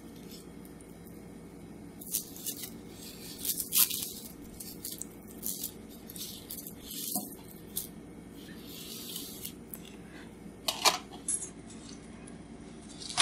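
A shiny blue toy slinky being stretched and handled, its coils clicking and rustling against each other in irregular bursts. It starts about two seconds in, with a couple of sharper clacks near the end.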